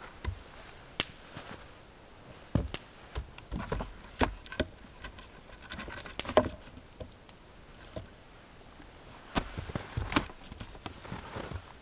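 Irregular wooden knocks and thuds as split logs are set down and stacked one on another between stakes to build a log wall, with the loudest knock about halfway through.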